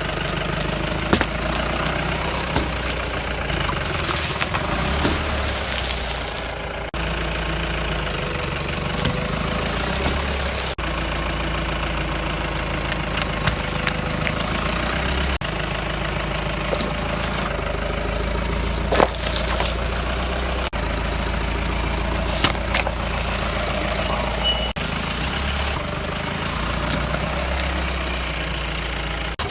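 Jeep engine running steadily, with a few sharp cracks and snaps of plastic paint buckets breaking under its tyres.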